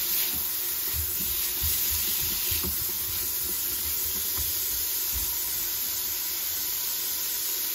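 Onions and celery sizzling steadily in hot oil as they sauté, with a few soft knocks in the first few seconds.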